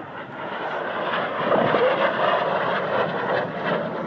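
Airplane flying past, its engine noise swelling about a second in and easing off near the end.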